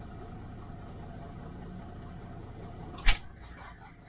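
Steady low hum of the truck's engine heard inside the cab, then a single loud thump about three seconds in.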